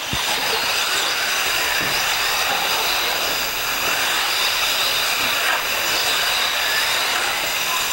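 A field of 1:8-scale electric off-road RC buggies racing on a dirt track: a steady mix of high-pitched whines from their brushless electric motors over a haze of tyre and dirt noise.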